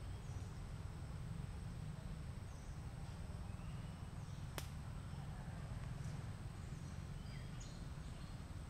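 Outdoor forest ambience: a steady low rumble with faint, scattered high chirps and one sharp click about halfway through.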